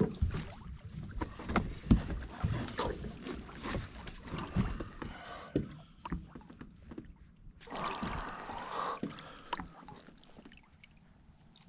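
Irregular knocks and thumps on the boat as an angler fights a hooked largemouth bass alongside, with a burst of splashing from the thrashing bass about eight seconds in.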